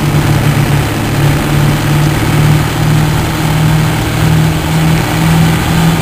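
2001 Ford 7.3L Power Stroke V8 turbodiesel running steadily as the truck is driven, a steady drone whose pitch creeps slightly higher.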